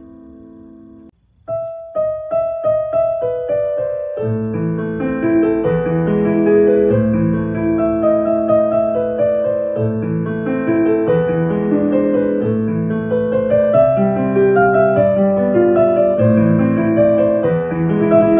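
Background piano music. A held chord dies away and the sound stops briefly about a second in. A new piece then starts with single notes, filling out into fuller chords from about four seconds in.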